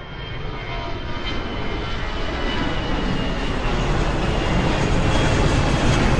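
Airplane engine noise growing steadily louder: a wide rushing rumble with a faint high whine on top.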